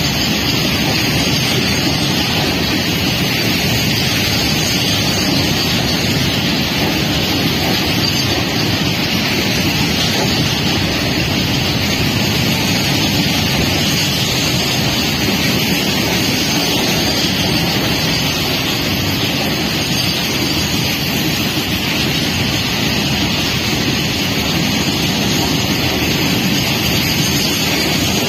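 Freight train of open-top wagons rolling past close by, a steady loud noise of steel wheels running on the rails.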